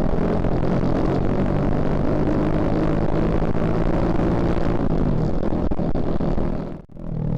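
Suzuki Shogun Axelo R motorcycle's 125 cc single-cylinder four-stroke engine running under way, a steady note that falls about five seconds in as the bike slows. Near the end the sound cuts out briefly, then the engine note comes back.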